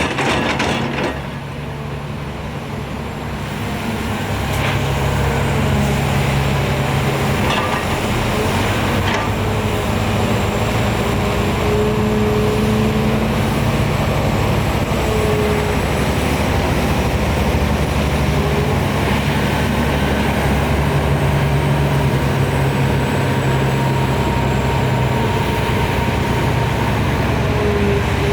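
Heavy diesel earthmoving machinery, the excavator and dump trucks of an excavator loading operation, running steadily under work. It is somewhat quieter for the first few seconds, then level, with a faint whine that rises and falls briefly now and then.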